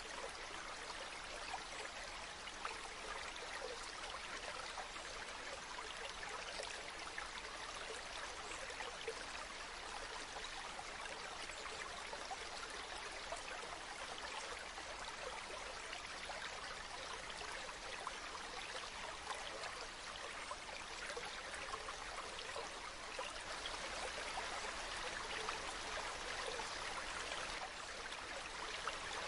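A river stream flowing and babbling over rocks: a steady, dense rush of running water with fine splashing and trickling detail.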